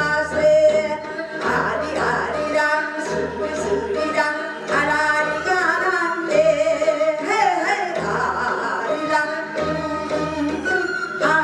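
A woman singing a Korean folk song into a microphone in a pansori-trained style, her voice bending and wavering between notes, over accompaniment with a low beat about once a second.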